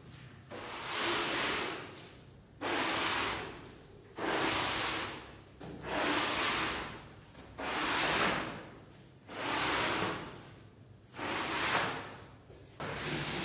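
A brush scrubbing a rug in long, even strokes, one about every second and a half, with short pauses between them; near the end the scrubbing becomes steady.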